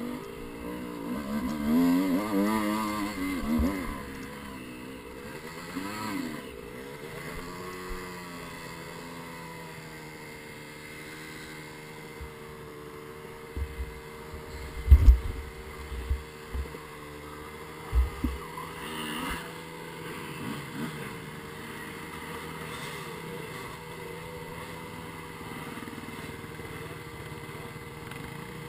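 Dirt bike engine revving up and down for the first few seconds, then running at a fairly steady speed. A few short low thumps come in the middle, from the bike jolting over the rocky ground.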